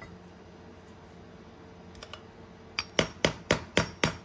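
Hammer tapping a small flathead screwdriver that is wedged under the old rubber slide-pin grommet in a brake caliper bracket, prying the grommet out. After a quiet start, a quick run of about six sharp taps comes near the end, roughly four a second.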